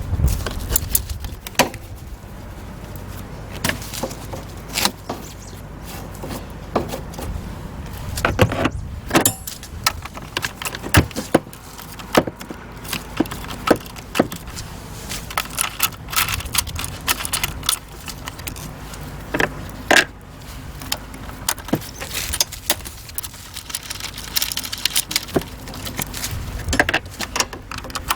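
Metal hand tools and parts clinking and clicking in irregular, scattered taps during a spark plug change on a small turbo car engine.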